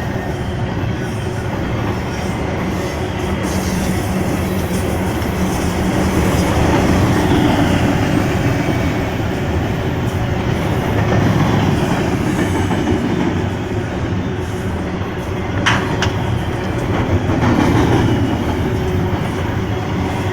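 BNSF freight train rolling past, a steady rumble of cars with wheels clacking over the rail joints. There is a short sharp clank about three-quarters of the way through.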